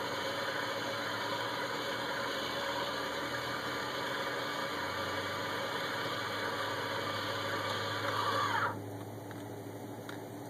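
Electric winch motor of a Bruno truck-mounted wheelchair crane whirring steadily as it reels in its lifting strap. It runs for about nine seconds, its pitch rising just before it cuts off.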